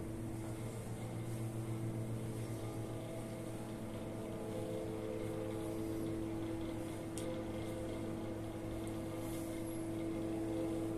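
Steady machine hum with a few constant low tones, with a faint tick about seven seconds in.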